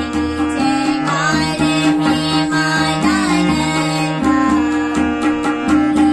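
A girl singing a Hindu devotional bhajan to harmonium, which holds sustained notes under the voice, and hand-played tabla strokes.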